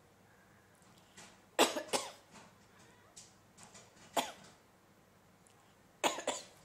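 A person coughing in three bouts: a double cough about one and a half seconds in, a single cough around four seconds, and a quick run of coughs near the end.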